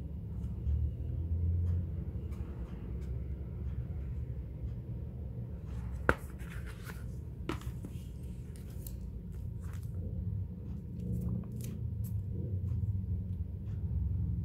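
Handling noise from a postcard book and a plastic-sleeved photocard set being moved about by hand: a steady low rumble with scattered light taps and rustles, and one sharp click about six seconds in.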